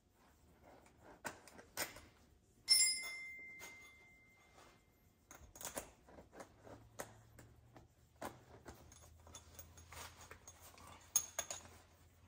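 Metal hand tools and parts being handled: scattered light clicks and clinks. About three seconds in comes one sharp metallic clink that rings on for a second or two.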